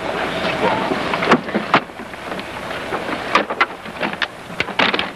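Wooden lobster traps knocking and clattering as they are handled into a small skiff: a string of irregular sharp knocks, coming thicker in the second half, over a steady hiss.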